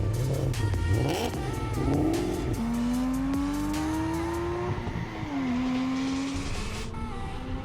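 Car engine accelerating: its pitch climbs steadily for about two seconds, drops briefly as it shifts gear, then holds steady.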